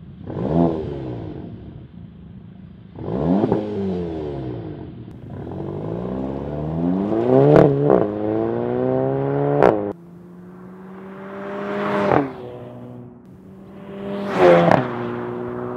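2016 Volkswagen GTI's turbocharged 2.0-litre four-cylinder through a Borla S-Type stainless cat-back exhaust with optional front resonator. It revs in two blips, then accelerates hard through the gears, rising in pitch in each gear, with a sharp crack at each gear change.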